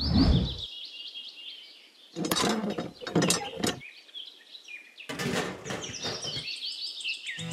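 Birds chirping in quick falling notes throughout, with a low thump right at the start. Two bursts of clicking and rubbing, about two and five seconds in, come from small plastic pipe parts of a miniature hand pump being handled and fitted together.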